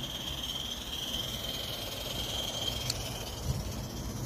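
Coal-fired Accucraft Ragleth live-steam garden locomotive running past with a steady high-pitched hiss, which fades after about three seconds as it moves away, over a low rumble; a single light tick comes about three seconds in.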